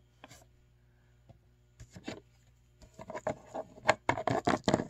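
Small plastic toy figures being handled and set down on a tabletop: a run of light taps, knocks and rubs, starting about two seconds in and getting busier near the end.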